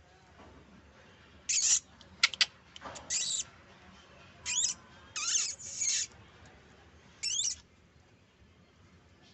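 Small kittens mewing: about six short, high-pitched mews, some bending up and down in pitch, beginning about a second and a half in.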